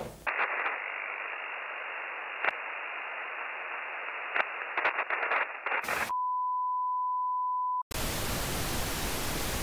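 Analogue video noise: a thin hiss with scattered clicks and crackles, then a steady single-pitch test-card tone held for about two seconds, cut off near the end by loud, even TV static.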